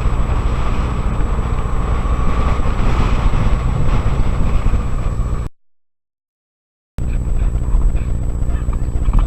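Honda XR250 Tornado's single-cylinder four-stroke engine running with a heavy low rumble, as on a ride. About halfway in the sound cuts out completely for about a second and a half, then returns.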